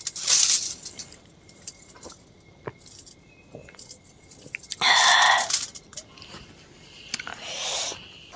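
A person drinking cola from a glass mug, with small clicks of the glass and sips. About five seconds in comes a loud gulp and breathy exhale from the drinker, and a softer breath near the end.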